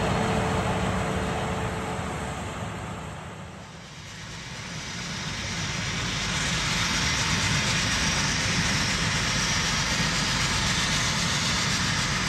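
Coal-fired steam cog locomotive working on the trestle: a steady hiss that fades in about four seconds in, after an earlier steady noise fades out.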